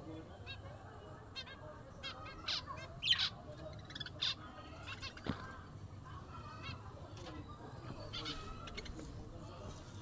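Caged budgerigars chirping: a scattering of short, high calls, most of them in the first half, then fewer and fainter.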